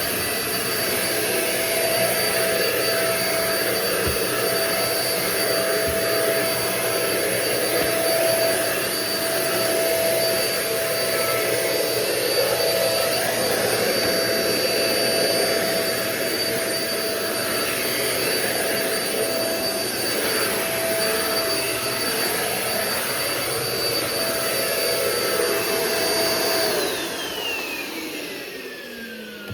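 Euro-Pro Shark EP600 bagless stick vacuum's 900-watt motor running steadily with a whine and rushing air, its filter about half clogged. Near the end it is switched off and the whine falls in pitch as the motor spins down.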